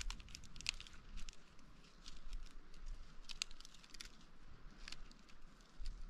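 Irregular light crackling and crunching clicks, with sharper ones about half a second in and again around three and a half seconds in.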